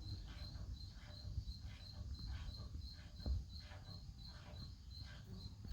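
A cricket chirping steadily, about three short high chirps a second, over a faint low rumble with a few light knocks.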